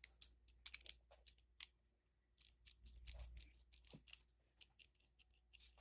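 A quick run of small sharp clicks, then softer scraping and rustling, from a cheap stainless-steel and plastic switchblade comb being handled and its switch worked back and forth.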